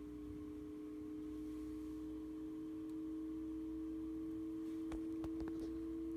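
Steady electrical hum from a 2.5-inch subwoofer voice coil fed 120 V mains through a variac, slowly growing louder as the coil is driven. A few faint clicks come about five seconds in.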